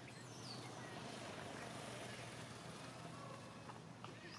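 Faint outdoor ambience: a distant motor vehicle passing, swelling through the middle and easing off near the end, with a few faint high calls gliding down in pitch.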